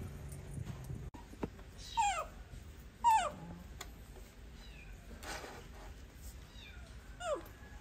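Tabby kitten mewing three times, short high cries that each fall in pitch, the second the loudest. A brief rustling scrape comes about five seconds in.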